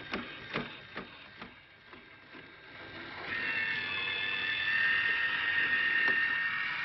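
LitterMaid automatic litter box raking a cycle: a few light ticks, then, about three seconds in, the rake motor's steady whine comes in and grows louder as the comb drags through the litter.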